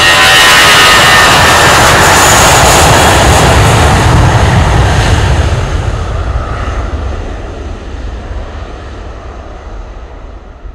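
Airbus A320's two IAE V2500 turbofans at takeoff power on the takeoff roll, a loud roar with the buzzsaw tone over it at first. The buzzsaw fades within the first couple of seconds, and from about five seconds in the roar dies away as the aircraft moves off down the runway.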